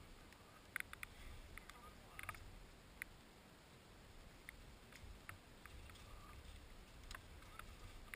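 Near silence broken by faint, irregular clicks of raindrops striking the camera housing, over a low rumble of wind.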